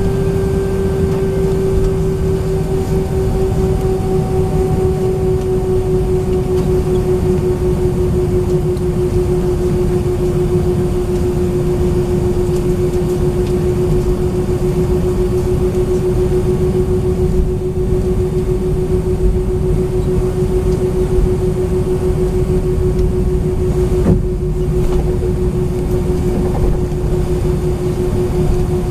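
Airbus A319-131 cabin noise with the IAE V2500 engines running at idle: a steady deep rumble under a constant hum whose pitch sinks slightly. A light knock comes near the end.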